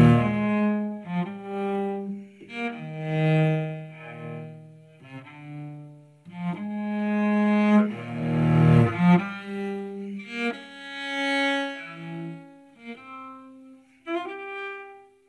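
Solo cello bowing a slow melody in long held notes, each swelling and fading, with a brief drop in loudness near the end.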